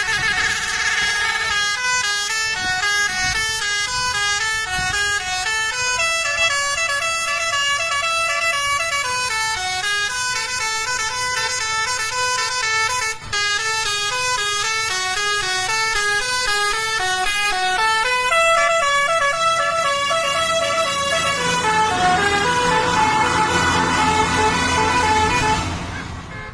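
Indonesian bus 'telolet basuri' musical air horn playing a tune of quick stepped notes. Near the end the tune slides down into a fuller, noisier blare.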